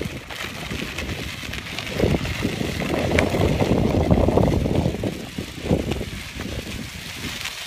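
Schwinn mountain bike rolling across gravel, its knobby tyres crunching and rumbling, with wind buffeting the bike-mounted microphone; loudest in the middle.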